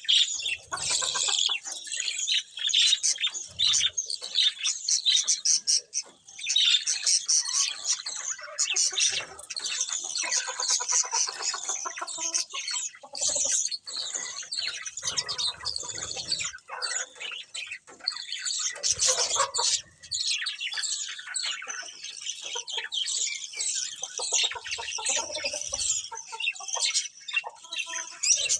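Several budgerigars chirping and warbling without a break, a dense jumble of overlapping high chirps.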